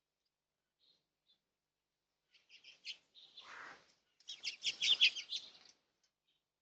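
Small birds chirping: a few scattered chirps, then a busy, rapid run of chirps about four to five and a half seconds in. A short rustling hiss sounds between them, about three and a half seconds in.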